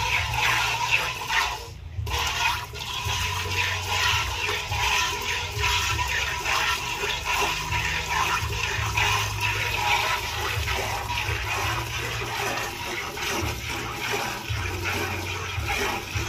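Hand milking: jets of milk squeezed from a cow's teats squirting and hissing into a steel pail, with a brief break about two seconds in.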